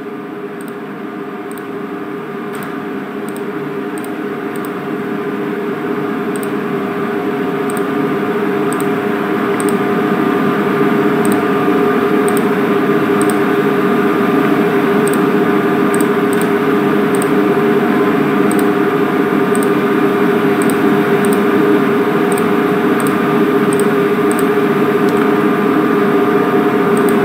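A steady mechanical hum with several held tones over a hiss, growing louder over the first ten seconds and then holding level, with faint, evenly spaced high ticks running through it.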